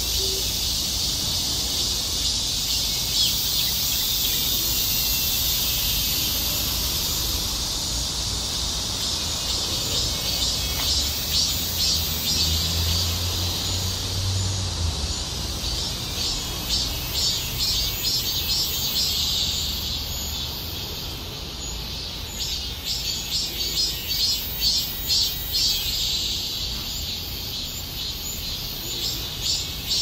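Cicada singing: a high-pitched buzz that holds steady at first, then about a third of the way in breaks into a rapid pulsing of several beats a second.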